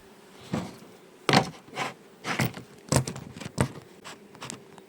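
Honey bees humming faintly and steadily around an open hive, overlaid by about six short scuffing noises spread over a few seconds.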